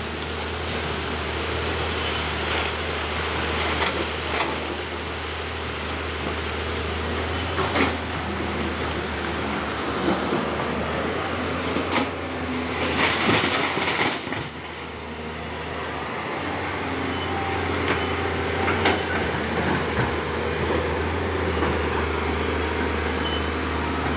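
Hydraulic excavators working in broken rock: a steady low diesel engine drone with scattered knocks and clatter of rock against the steel bucket, busiest about 13 to 14 seconds in.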